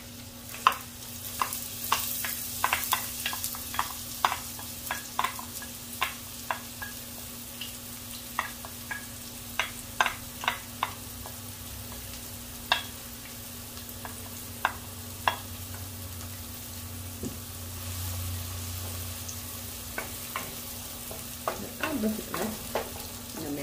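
Diced red onion sizzling in hot oil in a pre-heated pot. A wooden spoon knocks and scrapes against the bowl and the pot as the onion is tipped in and stirred, with many sharp knocks in the first seven seconds and scattered ones after.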